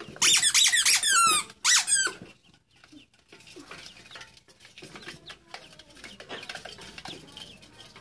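A rubber squeak toy is squeezed rapidly for about two seconds, giving a run of loud, high squeaks that fall in pitch. Then ducklings peep softly.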